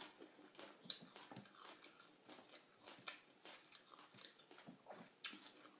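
Faint chewing and small wet mouth clicks of a person eating spicy raw-shrimp salad with sticky rice, in short irregular bites.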